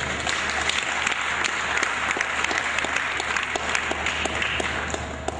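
Audience applauding: a dense patter of many hands clapping, easing off near the end.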